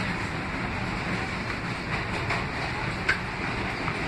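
Inside an R160 subway car running on the line: a steady rumble of wheels on rail and car-body noise, with one sharp click about three seconds in.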